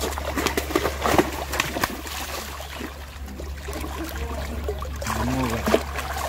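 Large fish trapped in a net thrashing at the surface of shallow pond water, a rapid jumble of splashes that is busiest in the first two seconds and then thins out.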